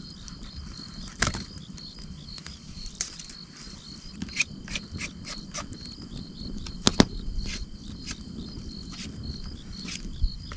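Crickets chirping steadily, with a wood campfire crackling and popping at irregular moments; the loudest is a sharp snap about seven seconds in.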